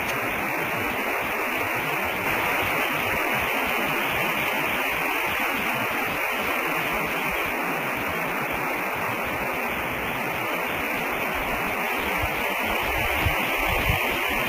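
Steady static hiss from the nest webcam's audio feed, even throughout, with a low rumble creeping in near the end.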